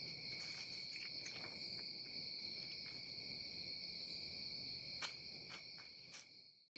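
Crickets trilling in a steady, unbroken night chorus, with a few faint ticks. The chorus cuts off suddenly near the end.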